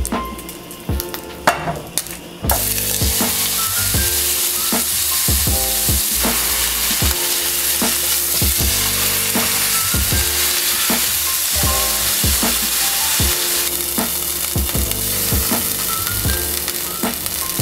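Beef chuck roast searing in hot oil in a frying pan: a loud, steady sizzle that starts suddenly about two and a half seconds in, as the meat goes into the oil.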